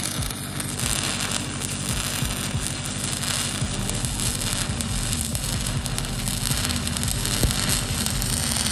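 Stick-welding arc from a cellulose pipeline electrode running steadily on a steel pipe during the hot pass, with the rod whipped back and forth.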